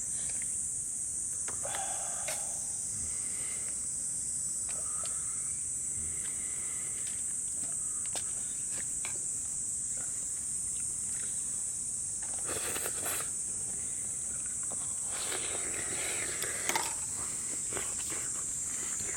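Insects singing steadily in a continuous high-pitched trill, with a couple of brief rustling or handling noises partway through.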